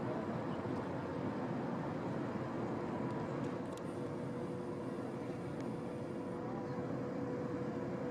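Steady mechanical drone with a constant hum, unchanging throughout.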